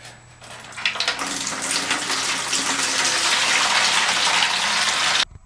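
Standing water pouring out of a front-loading washer's opened drain pump filter into a bucket, a steady rushing splash. It builds over the first second and cuts off suddenly near the end. The water had been trapped in the drum by a clogged drain trap.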